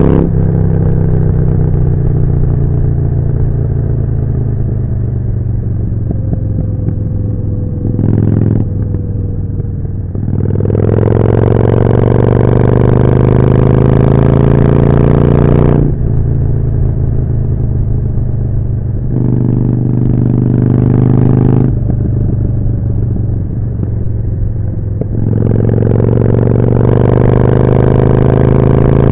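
Harley-Davidson Forty-Eight's air-cooled V-twin running through a Jekill & Hyde exhaust while riding. The revs fall away over the first third, then it pulls louder with rising pitch and drops off. It gives one short surge, then pulls again near the end.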